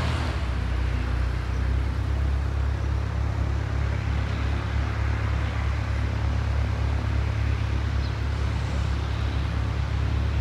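ATR 72 twin turboprop running its engines and propellers at taxi power while taxiing: a steady low drone with a fast pulsing throb.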